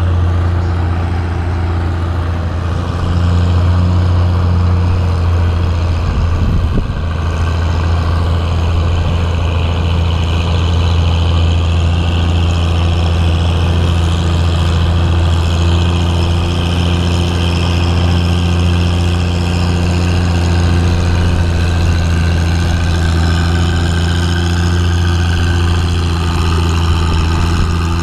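Antique farm tractor engine running at a steady speed, a deep, even drone, as it tows a weight sled at a slow crawl. There is a brief knock about a quarter of the way through.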